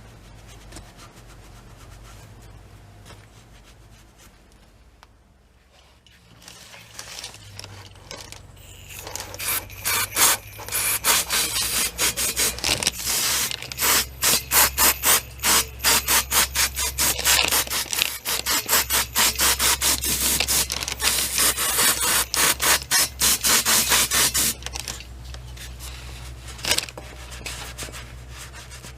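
Rapid back-and-forth rubbing or scrubbing strokes, about three a second, starting about nine seconds in and stopping a few seconds before the end, over a steady low hum.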